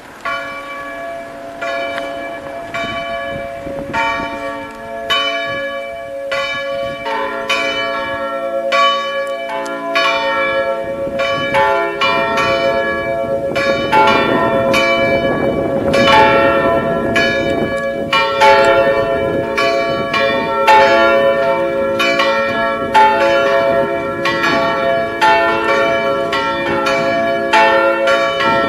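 Three church bells swinging and ringing together in an open bell frame. One bell starts; the others join within the first several seconds, and the peal grows louder and denser, with the strikes overlapping irregularly.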